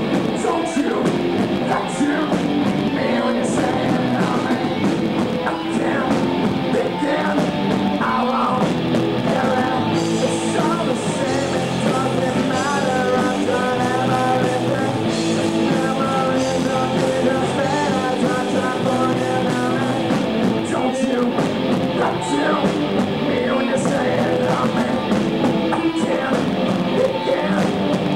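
A rock band playing live on electric guitars, bass and drum kit, loud and steady, with cymbal strikes cutting through.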